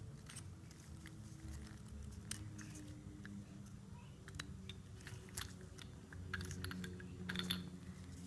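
Faint scattered clicks and rubbing as nitrile-gloved hands handle a steel engine main bearing cap with its bearing shell fitted.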